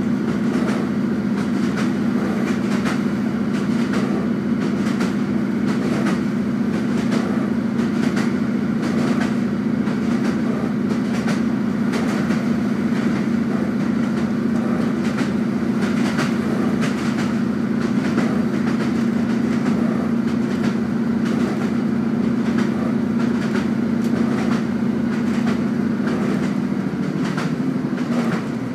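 Inside a diesel multiple-unit passenger train at speed: a steady low engine drone, with frequent clicks of the wheels over the rails. Near the end the drone drops lower as the power eases off.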